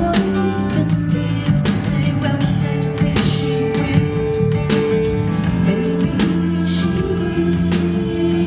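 Live band playing a rock song, with a long held note and a sharp hit landing about every one and a half seconds.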